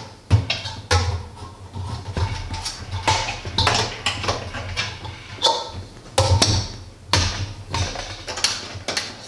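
Parts of an all-in-one electric brewing kettle being fitted together by hand: a run of irregular clanks and knocks, some with a short metallic ring.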